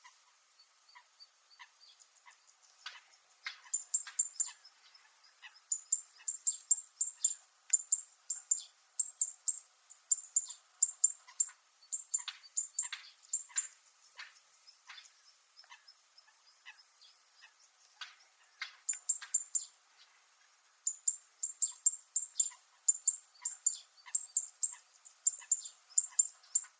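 Zitting cisticola (fan-tailed warbler) giving sharp, metallic, high-pitched notes in quick runs of three to five, repeated over and over, with a few short pauses.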